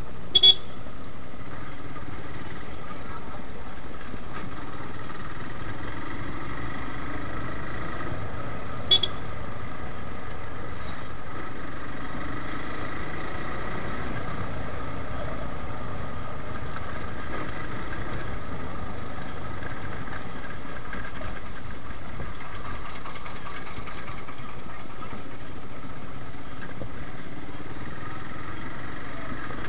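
Suzuki Gixxer single-cylinder motorcycle engine running steadily while riding, with road and wind noise. Two short, sharp high-pitched sounds stand out, one just after the start and one about nine seconds in.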